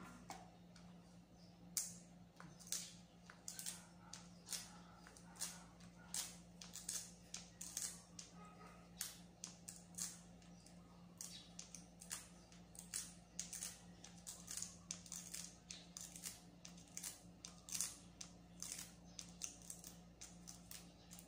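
Light, irregular taps and clicks of fingers handling a smartphone and its thin plastic screen film, about one or two a second, over a steady low hum.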